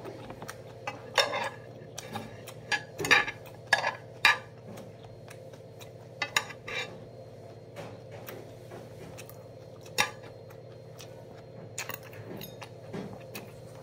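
Metal spoon and metal chopsticks clinking against bowls and dishes while eating: a scattered series of sharp clinks, several louder ones in the first few seconds and another about ten seconds in.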